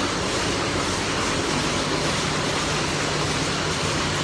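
Steady din of factory machinery: an even rushing noise with a low hum underneath, unchanging throughout.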